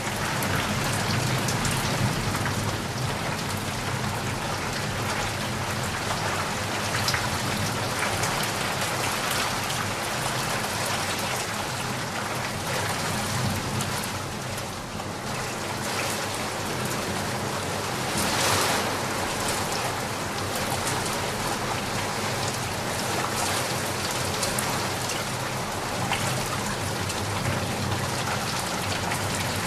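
Steady rainfall: a continuous even hiss of rain with individual drops ticking through it, briefly swelling louder about two-thirds of the way through.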